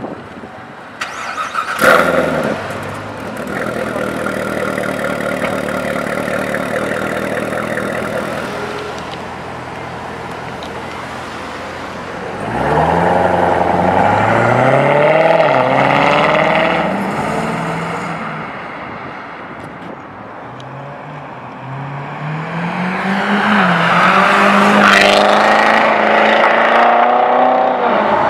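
Chevrolet Corvette C7 Z06's supercharged 6.2-litre V8 firing up with a loud bark about two seconds in, then idling steadily. About twelve seconds in it revs up and pulls away, the pitch climbing and dropping with the gear changes. Near the end a car engine rises again under hard acceleration.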